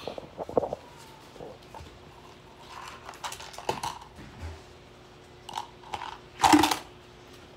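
Scattered handling noises: small clicks, knocks and brief rustles of things being moved and the phone being handled on a wooden desk, with one louder short noise about six and a half seconds in.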